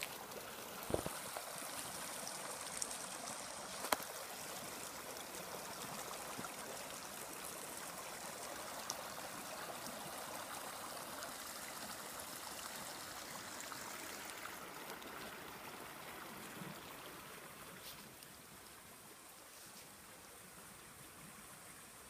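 Small forest river running over rocks in a steady rush of water, growing fainter over the last several seconds. A few light clicks sound in the first few seconds.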